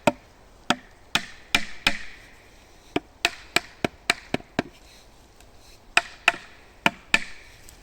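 Wood being chopped: a quick, irregular run of sharp chopping strikes, about two a second, with a short break midway.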